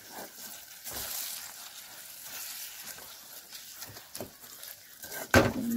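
Whole jujubes sizzling in hot oil with spices in a karahi, stirred with a wooden spatula, with a few light clicks and scrapes. A sharp knock comes near the end.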